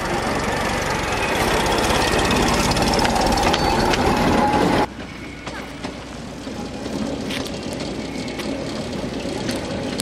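Small narrow-gauge rail motor car's engine running as it moves close by along the track. About five seconds in, the sound cuts to a much quieter engine of a motor car running in the distance, slowly growing louder as it approaches.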